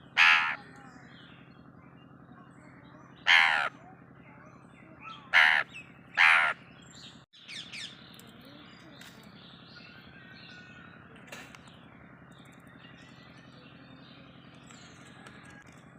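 Indian ringneck parakeet imitating a crow's caw: four loud caws in the first seven seconds, the last two close together.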